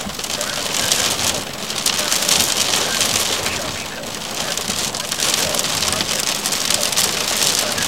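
Heavy rain pelting a car's windshield and roof, heard from inside the car as a dense, steady patter that eases slightly about four seconds in.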